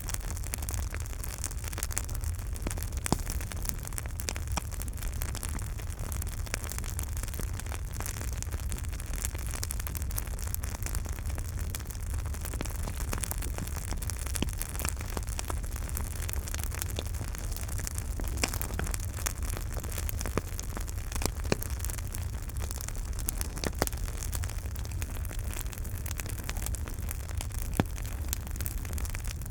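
Campfire burning, with a steady low rumble and hiss of the flames and frequent crackles and pops of burning wood, a few sharper pops standing out.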